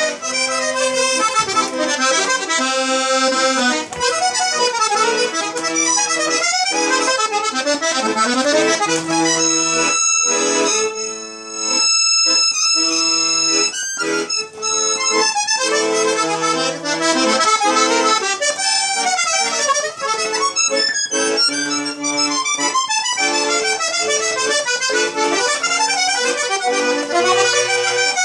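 Piano accordion playing a Romani song solo, a melody over bass accompaniment, with a long held chord about ten seconds in.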